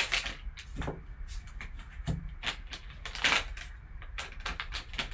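Plastic packaging and trading cards being handled as a sealed card pack is opened: a run of short rustles and clicks, the loudest about one, two and three seconds in.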